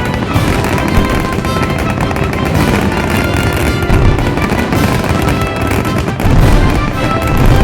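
Fireworks going off in a rapid string of booms under music, with a louder barrage about six seconds in.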